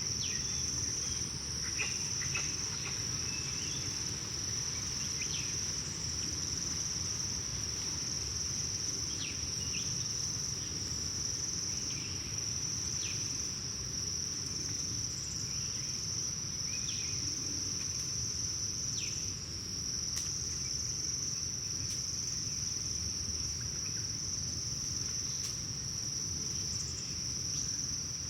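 Tropical forest ambience: a continuous, steady high-pitched insect drone, with short bird chirps scattered through it and a low steady rumble underneath.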